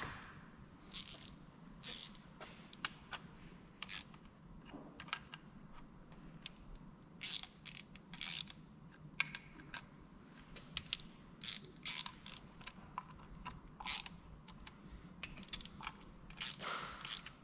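Small socket ratchet clicking in short, irregular runs as the nuts on the camshaft bearing caps of a VR6 cylinder head are wound down a little at a time, pulling the cams down evenly against stiff double valve springs.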